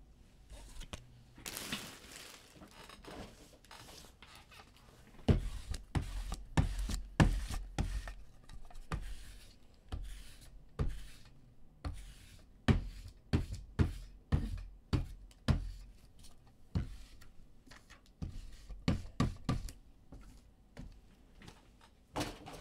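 A lint roller worked by hand over a cloth mat: a brief rustle about two seconds in, then a string of sharp thuds and knocks, roughly one or two a second, as the roller is pressed and pushed across the mat.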